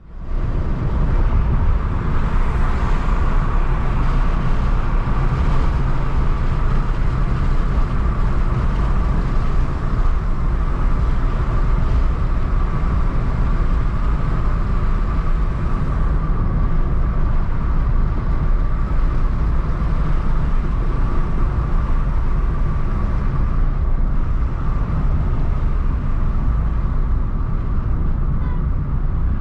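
A car driving on city streets: steady engine and tyre rumble, fading in over the first second.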